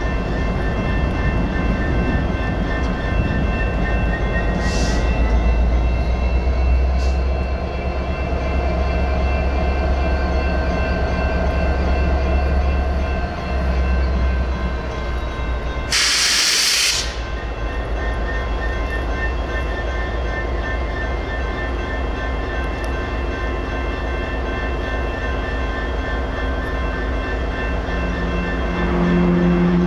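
Idling diesel freight locomotive with a steady low rumble that rises and falls for a while, under the continuous ringing of railroad crossing bells. A short, loud burst of air hiss comes about halfway through, and a low horn-like tone starts just before the end.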